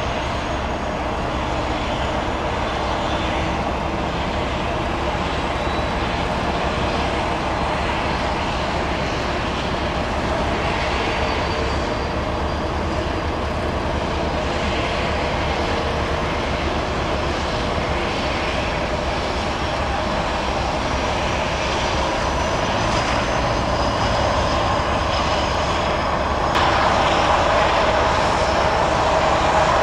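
Leonardo AW169 twin-engine helicopter's turboshaft engine starting with the rotors not yet turning: a high turbine whine climbs slowly in pitch over a steady rush. About 26 seconds in the sound steps up, louder and fuller.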